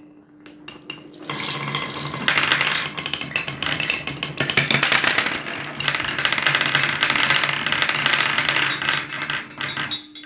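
Many glass marbles rolling and clattering down wooden marble-run tracks: a few single clicks, then about a second in a dense, loud rattle of knocks that cuts off suddenly near the end. A steady low hum runs underneath.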